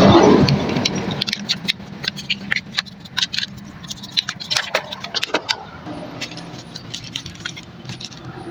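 Small metal motorcycle engine parts clicking and jingling as they are handled, a string of light, irregular metallic ticks. The first second is louder.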